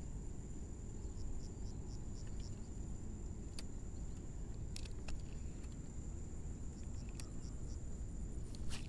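A steady low rumble under a thin, steady high-pitched insect drone, with a short run of quick faint ticks about a second in and a few sharp clicks from handling the ultralight spinning rod and reel, the loudest near the end.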